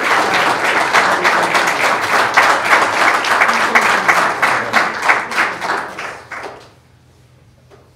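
Audience applauding, many hands clapping together; the applause fades out about six and a half seconds in.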